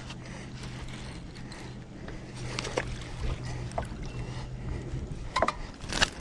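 Fishing reel being cranked and clicking while a hooked fish is reeled in, with a few sharp clicks, the strongest about two and a half seconds in and near the end, over a steady low hum.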